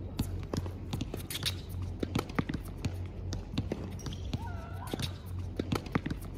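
Tennis rally on a hard court: the pop of racquets striking the ball, ball bounces and players' footsteps, as many sharp knocks over a steady low hum, with a couple of short squeaks about four to five seconds in.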